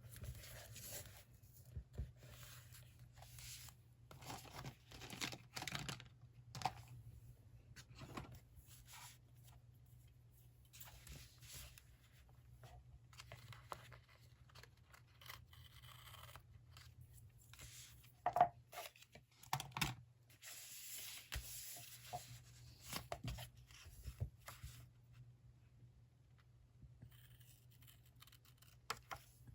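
Paper and stickers being handled at a desk during diary decorating: a run of short, irregular rustles, tears and light taps, with a longer stretch of tearing or peeling about twenty seconds in, over a faint steady low hum.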